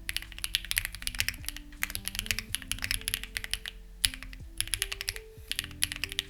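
Fast typing on a Lucky65 v2 mechanical keyboard with stock, unlubed HMX Ziwei switches and clone CMK keycaps: rapid runs of keystrokes with short pauses between bursts. Soft background music plays underneath.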